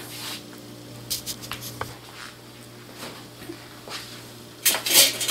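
Stainless-steel pinwheels handled on a wooden workbench: a few light clicks and knocks, then a louder short clatter of metal blades near the end. A steady low hum runs underneath.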